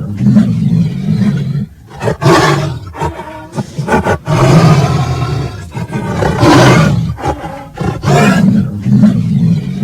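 Rainforest Cafe animatronic tiger's sound effect: recorded tiger roars and growls, several loud roars in a row with short breaks between them.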